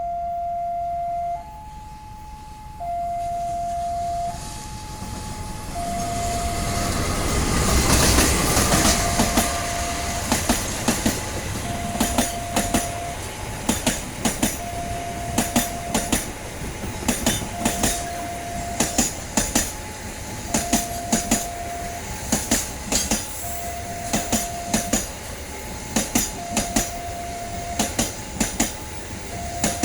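A long diesel-hauled passenger train passes close: the locomotive rises to a loud rumble about eight seconds in, then the wheels clack over the rail joints in regular clusters, carriage after carriage. A two-tone warning alarm alternates between a lower and a higher note about every second and a half throughout, typical of a level-crossing signal.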